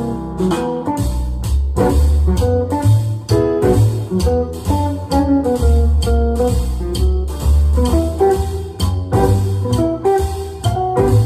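A guitar-led instrumental track with a strong bass line, played loud through a pair of vintage Energy 4.1e loudspeakers and heard in the room.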